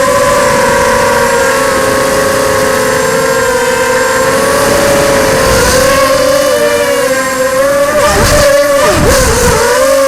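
ZMR 250 quadcopter's brushless motors and propellers whining together in several close pitches that drift up and down with throttle. About 8 and 9 seconds in the pitch plunges and swoops back up twice as the throttle is chopped and punched through acrobatic moves.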